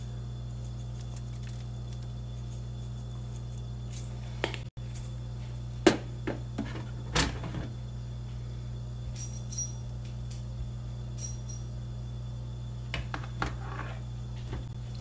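Scattered clicks and knocks of kitchen items being handled, the sharpest about six and seven seconds in and a few more near the end, over a steady low hum.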